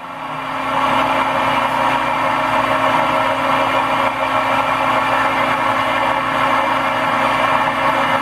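Milling machine spindle running steadily: a constant motor hum with an even whir above it, coming up to full level within the first second.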